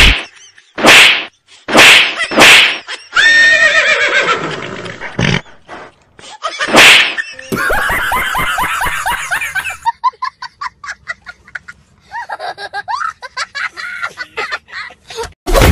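A string of comic sound effects: a few sharp hits, a pitched cry that falls in pitch about three seconds in, and later long stretches of rapid chattering pulses.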